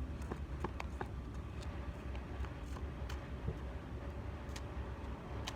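A scattered run of light clicks and ticks, several close together in the first second or so and then a few spaced ones, over a steady low rumble.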